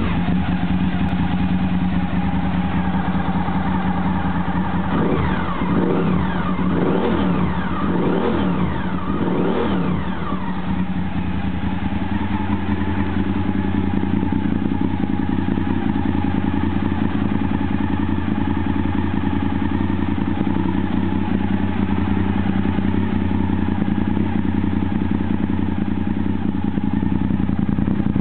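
Honda SP1's 90-degree V-twin engine idling steadily, blipped up and back down about five times in quick succession around five to ten seconds in, then settling back to a steady idle.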